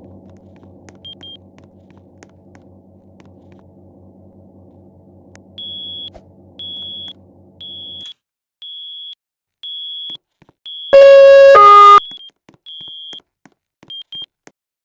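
Airport fire alarm system sounding: a high electronic beep repeats about once a second, broken by one loud two-note tone, higher then lower, lasting about a second. A low steady electrical hum underneath cuts off partway through.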